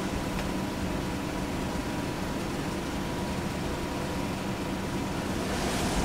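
Steady vehicle engine and road rumble with a constant hum, like riding in a vehicle on a highway; a rush of noise swells near the end as if another vehicle passes.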